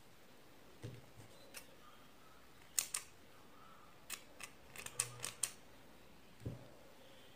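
Scissors snipping through strands of yarn: sharp clicks, a pair about three seconds in, then a quicker run of about seven a second later. Soft low thumps of handling about a second in and near the end.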